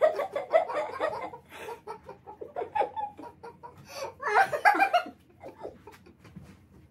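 Laughter in short staccato, hiccupping bursts: a man imitating a woman's 'kkeuk-kkeuk' laugh, loudest in the first second and again around four seconds in, then dying away near the end.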